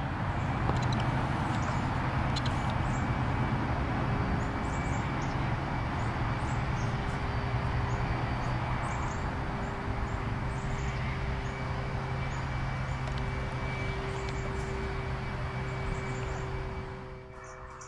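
Steady low mechanical hum over a broad rushing background noise, with a faint high whine. It fades down near the end.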